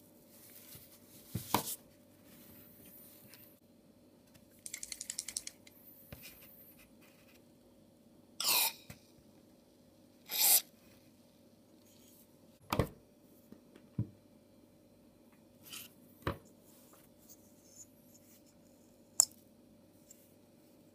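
Handling noises from a Honda Fit plastic stick ignition coil being taken apart by hand, with its rubber boot and spring and a thin wire probe: scattered clicks and knocks, a quick rattle of ticks about five seconds in, a few short scrapes, and a sharp click near the end. A faint steady hum runs underneath.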